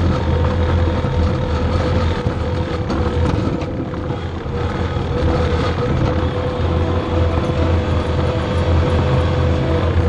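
Skid steer's diesel engine running steadily under load while it travels with a full scraper pan attachment, with a steady whine above the low engine rumble.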